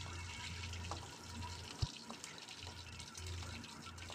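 Hot mustard oil sizzling and crackling softly in a kadai after frying bata fish, as the fried pieces are lifted out. One dull low knock about two seconds in.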